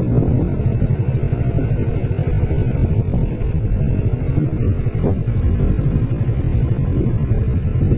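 Motorcycle engine running steadily at riding speed, a low rumble mixed with wind on the microphone.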